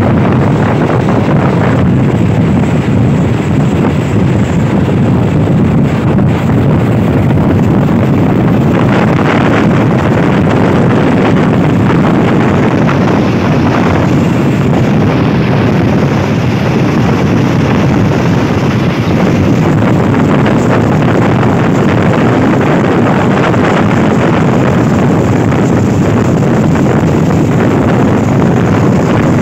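Steady rumble of a moving passenger train with wind rushing over the microphone, heard from an open carriage window.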